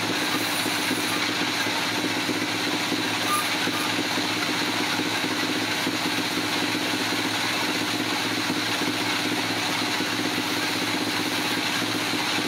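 Machinery running steadily with an even, unchanging hum.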